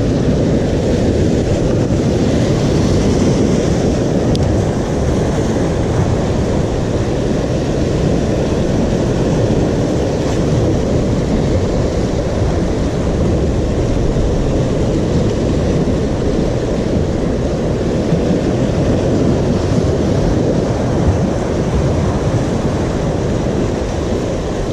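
Loud, steady rush of surf washing over shoreline rocks, mixed with wind buffeting the microphone.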